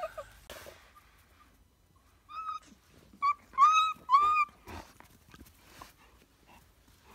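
Briard puppy whining: four short, high-pitched whines in quick succession, starting about two seconds in, the last two the loudest.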